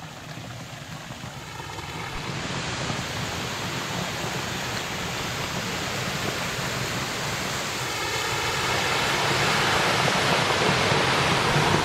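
Small waterfall: water rushing steadily over a rock ledge into a pool, growing steadily louder.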